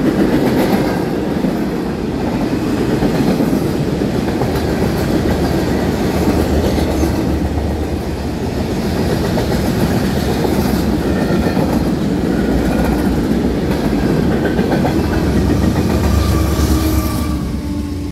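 Freight cars rolling past on the rails: a steady heavy rumble of steel wheels with clickety-clack over the rail joints, easing off only at the very end as the last car clears.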